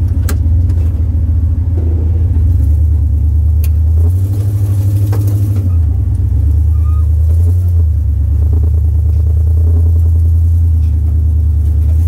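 Off-road vehicle's engine running at low revs with a loud, steady low rumble as it crawls up a steep rock climb, with three sharp knocks in the first half.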